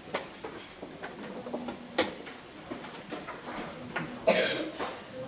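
A person coughs once, loudly, about four seconds in, over a few sharp clicks of pieces or clock buttons at the chess tables.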